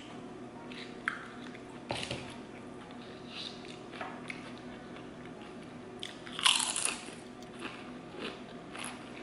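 Eating close to the microphone: small mouth clicks and chewing sounds, then one loud crunchy bite about six and a half seconds in.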